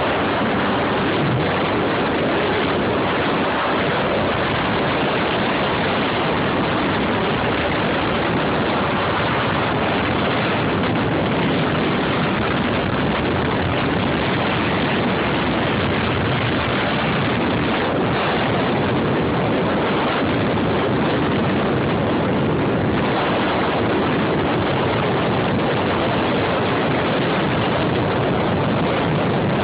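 Jet ski running on the water: a steady, unbroken rush of engine and water noise.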